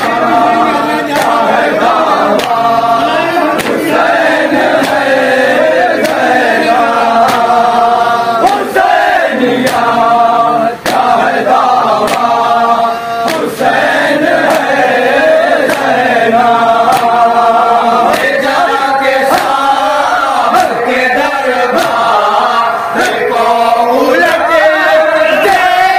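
A group of men chanting a noha, a mourning lament, in unison. Their open-hand chest-beating (matam) gives a regular slapping beat under the voices.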